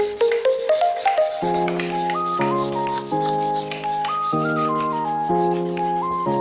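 Rhythmic rubbing strokes of hand sanding, about four or five a second, over instrumental background music whose melody moves in held notes about once a second.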